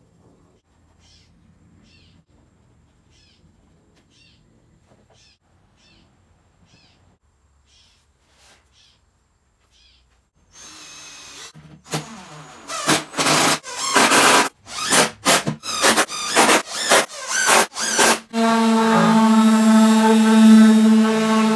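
A power tool started and stopped in a quick series of short runs, then from about two-thirds of the way in a random orbital sander runs steadily with a hum, sanding a wooden tabletop. Faint light ticks come before it.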